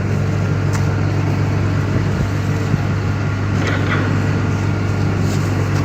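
Running machinery droning steadily at a low pitch, with a few faint clicks over it.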